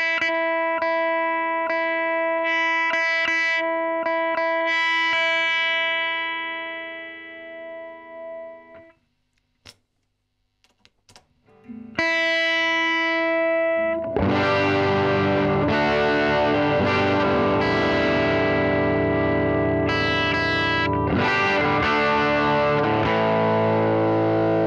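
Electric guitar through a Marshall SV20C valve combo, its speaker volume turned down by an Ox attenuator. A chord rings out and fades over several seconds. After a short gap with a few clicks as the amp's knobs are turned, overdriven chords and riffs follow, with a gritty, bright tone.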